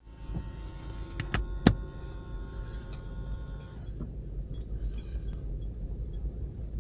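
Low, steady road and engine rumble heard from inside a slowly moving car, with a few sharp clicks and knocks in the first two seconds, the loudest about 1.7 s in, as the phone recording it is handled and set on the dashboard.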